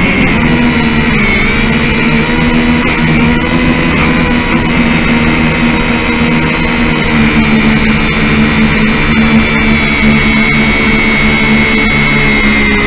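Kyosho Quatrox Eye mini quadcopter's electric motors and propellers running with a loud, steady whine, heard through the drone's own onboard camera. The pitch shifts slightly about a second in and rises a little about seven seconds in.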